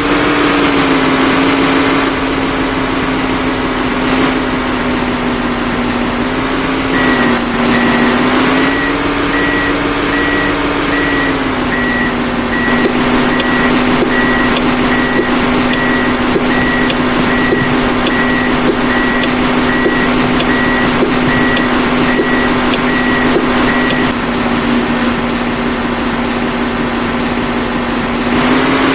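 A construction vehicle's engine running, its pitch rising and falling a few times, with a reversing alarm beeping rapidly from about seven seconds in until about twenty-four seconds in.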